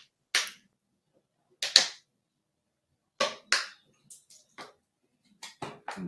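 Plastic bottles being handled and set down on a tabletop: a few separate sharp knocks and clicks, the loudest about two seconds in, then lighter ticks.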